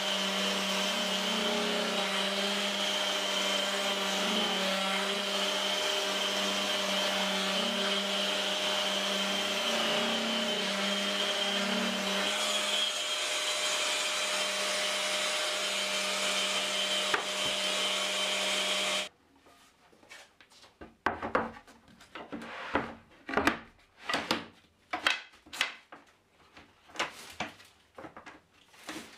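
Festool random orbital sander and its dust extractor running with a steady hum, cutting off suddenly about two-thirds of the way through. After that come scattered sliding, rubbing and knocking sounds of a plywood panel being handled on the workbench.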